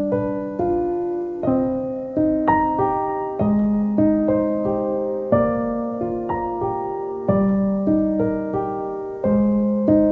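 Background music: a gentle piano (or electric piano) piece, chords and notes struck every half second or so and left to ring and fade.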